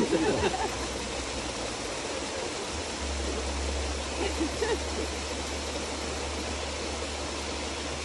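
Steady rush of flowing stream water below a waterfall, with faint voices briefly near the start and around the middle.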